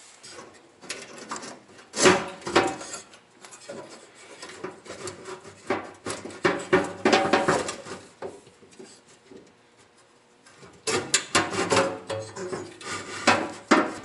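Gas burners of a Lennox WhisperHeat G20 furnace scraping and clinking against the metal burner box as they are worked loose and pulled out by hand: a string of short rubs and knocks, with a pause of about two seconds near the end.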